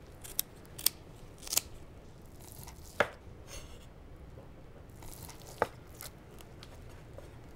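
Kitchen scissors snipping the straw bindings of a tied, braised pork trotter, then a knife cutting through the rolled pork. A handful of separate sharp snips and cuts come a second or two apart, the first three close together.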